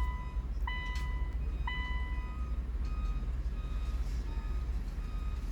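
Electronic beeps during immobilizer key programming, about one a second and each about half a second long, then fainter short tones in the second half while the system works.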